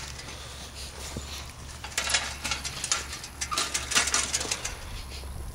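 Footsteps crunching on dry, dead winter grass, an irregular run of steps heaviest from about two seconds in, over a low steady rumble.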